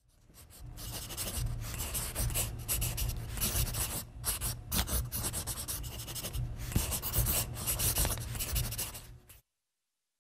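A pen scratching across paper in quick, uneven strokes, as in sketching a drawing, with a low rumble underneath. It cuts off suddenly about nine seconds in.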